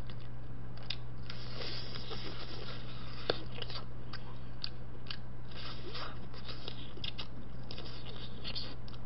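Close-up eating sounds of boiled chicken being chewed: scattered wet clicks and smacks from the mouth, over a steady low electrical hum.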